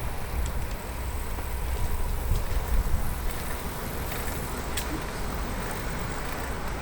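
Riding a bicycle on a road: steady wind rumble on the microphone and tyre noise, with a few faint ticks from the bike.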